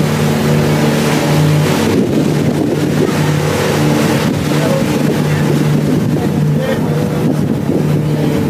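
River ferry boat's engine running with a steady hum at cruising speed, with water rushing past the hull. A couple of seconds in, a louder rush of noise briefly covers the engine tone.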